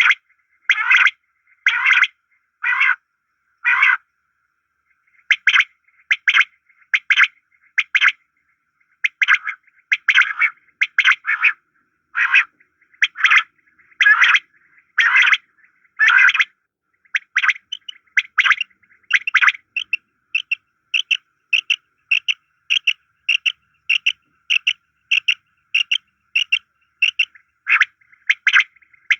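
Bird calls from a pair of birds: short, rasping call notes repeated about once or twice a second, with a gap of about a second early on. From about a third of the way in, the calls become shorter, quicker and more evenly spaced, with a thin steady whistle beneath them.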